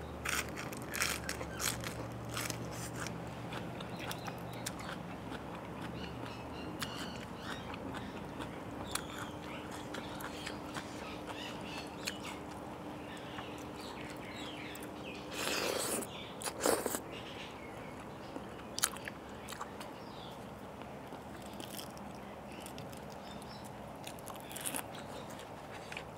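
Close-miked eating sounds: crisp crunching bites of raw cabbage leaf and chewing, most frequent in the first few seconds. A brief louder burst comes about fifteen and a half seconds in, with a few sharper clicks after it.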